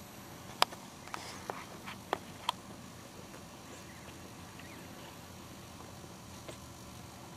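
Newborn puppies in a sleeping heap giving a handful of tiny, sharp squeaks in quick succession during the first two and a half seconds, the loudest about half a second in, then only quiet room tone.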